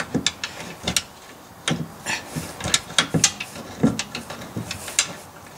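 Metal clicks and clunks as a power steering gearbox is rocked and pushed against the chassis and onto its tight steering-coupling spline. The knocks come irregularly, a few each second.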